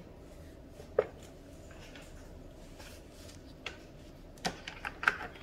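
Plastic trays of a Presto food dehydrator knocking and clicking against each other as they are lifted and set onto the stack: one sharp knock about a second in, then a quick cluster of clicks near the end.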